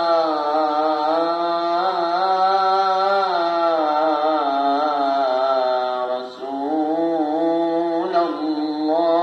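A muezzin's voice chanting the Friday sela from the minaret in long, ornamented, held phrases, with a brief pause for breath about six seconds in before the next phrase begins.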